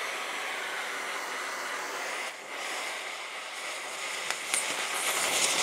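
Cutting torch flame hissing steadily as it melts a seized bearing race off a windmill compressor's crankshaft, briefly dipping about two and a half seconds in.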